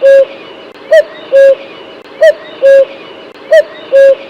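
Common cuckoo calling its two-note "cuck-oo": a short higher note and a longer lower one, repeated evenly about every 1.3 seconds.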